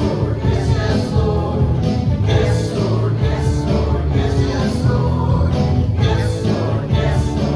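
Live worship band playing an upbeat song with singing over guitar and a steady beat.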